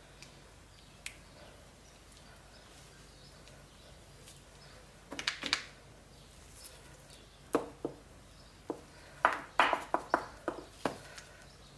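Quiet room tone, then from about five seconds in a string of sharp clicks and knocks, a spoon and other utensils tapping against dishes and the soap mold.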